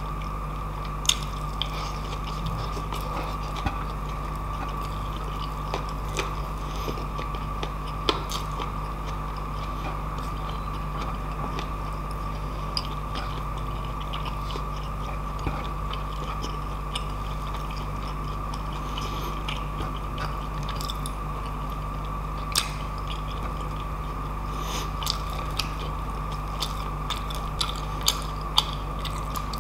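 Close-up chewing and mouth clicks as a man eats rice and pancit noodles by hand: scattered sharp clicks and smacks over a steady background hum.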